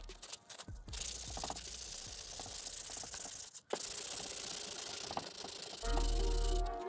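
Sandpaper rubbing back and forth over a wooden machete handle, hand-sanding the wood scales smooth, with short breaks between strokes. Background music comes in about six seconds in.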